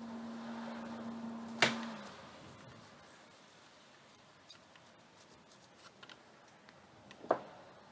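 Small tools handled at an electronics rework bench while spent flux is cleaned off the board and fresh flux applied: a steady hum that stops after a sharp click about one and a half seconds in, then faint ticks and scratches, and another sharp clack near the end.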